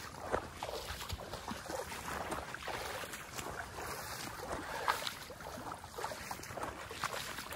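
Wading footsteps sloshing and splashing through shallow floodwater, an uneven run of steps with no steady rhythm.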